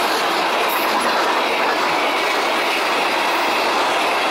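Freight train cars rolling past at speed: steady, loud noise of steel wheels running on the rails.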